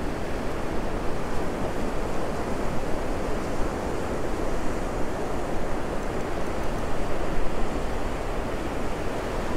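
Ocean surf breaking and washing up a sandy beach, a steady roar, with wind rumbling on the microphone.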